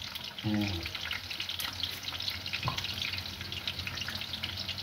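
Water splashing and trickling during a quick wash-up, over the steady crackling sizzle of food cooking in a pot. A brief hum of a voice comes about half a second in.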